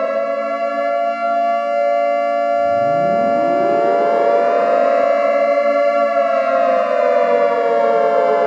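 Civil-defence warning siren wailing, several wails overlapping: one holds a steady pitch while another starts low about two and a half seconds in, rises to the same pitch and then slowly falls.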